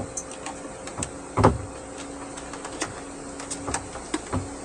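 Scattered clicks and knocks of cable plugs and wiring being handled and pushed into the connectors on the back of a chartplotter, with one louder knock about a second and a half in. A faint steady hum runs underneath.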